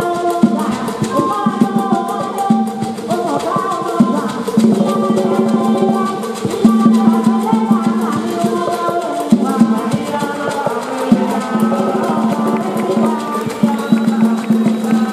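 Afro-Cuban Lucumí orisha music: drums and rattles play a dense, driving rhythm while a group of voices sings over it.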